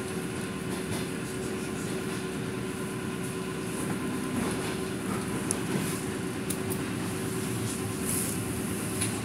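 Suburban electric train (elektrichka) in motion, heard from inside the carriage: a steady running rumble with a constant hum and a few faint clicks.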